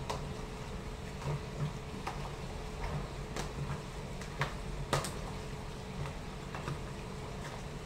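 A metal spoon stirring oiled, marinated chicken pieces in a plastic tub, with scattered clicks of the spoon against the container, the loudest a little before five seconds in. A steady low hum runs underneath.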